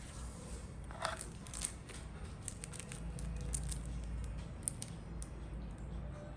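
Packaging being handled and opened: scattered light clicks and scrapes of cardboard and plastic, with a longer scrape about a second in.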